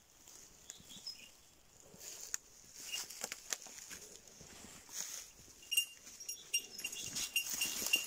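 Footsteps crunching and brushing through dry leaf litter and twigs. About two-thirds of the way in, a rapid, even run of short, high ringing ticks begins and grows louder, becoming the loudest sound by the end.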